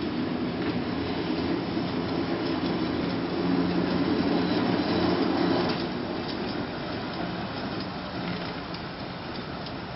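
Open-bench electric streetcar running past on its track: steady running noise of wheels on rail and traction motors, loudest around the middle and fading after about six seconds as the car moves away.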